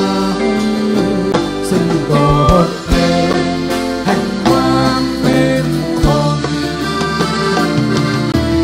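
Live band playing a song: a drum kit and guitar under a sustained, gliding melody line.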